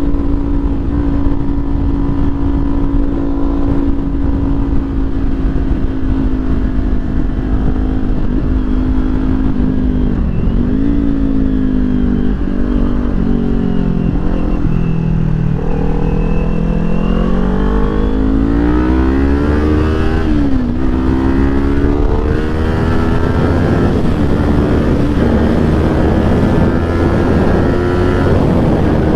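Kawasaki Ninja 400's parallel-twin engine, still on its stock exhaust, pulling steadily while riding. Between about ten and twenty seconds in, the revs dip and climb back several times, the longest a slow drop followed by a rise, before settling to a steady pull again.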